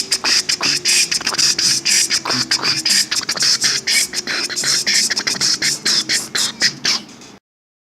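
Mouth-made beatbox, layered into a loop in a phone looping app: a dense, fast pattern of percussive clicks and hissing hi-hat sounds over a faint hummed low line. It cuts off abruptly near the end.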